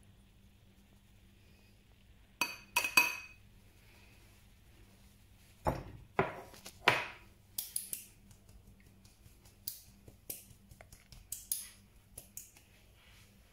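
A stainless steel mesh sieve being shaken and tapped while sifting flour, clinking against the glass jar and the ceramic plate: a few sharp clinks about two and a half seconds in, a louder cluster around six to seven seconds, then a run of lighter taps.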